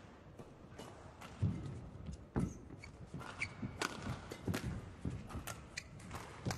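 Badminton rally: rackets striking the shuttlecock in a fast exchange of smashes and returns, with the players' shoes thudding and squeaking on the court floor. The sharp hits and thuds come irregularly, the loudest about one and a half seconds in.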